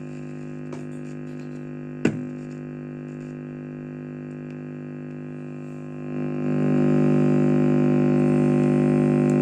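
Mains hum from a 4440 IC amplifier through its speaker: a steady low buzzing drone, with a sharp click about two seconds in. From about six seconds the hum swells to a much louder drone, the kind an open or touched input produces; that the IC can make it shows the IC still works.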